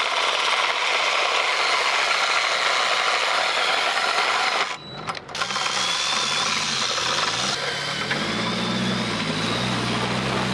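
Loud rushing noise, then an off-road vehicle's engine revving up and down several times and running on steadily, with a thin high whine over it.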